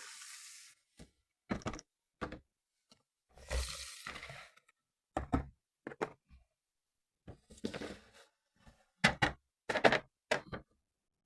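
Toy packaging being handled and opened: a series of irregular knocks and thunks on a cardboard box, with two stretches of rustling or scraping.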